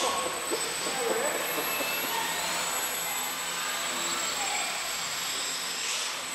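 Small electric RC plane's motor and propeller whining as it flies and hovers, the pitch rising about two seconds in as the throttle opens.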